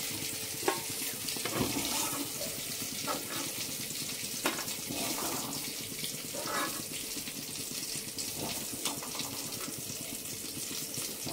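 Hot oil sizzling steadily as chicken pieces fry in an aluminium kadai, with a few short clinks and scrapes of a perforated steel skimmer against the pan and plate.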